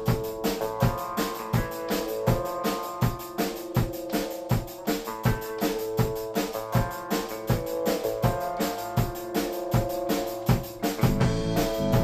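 Background music with a steady drum beat of about three strokes a second under sustained instrument notes; a fuller bass comes in near the end.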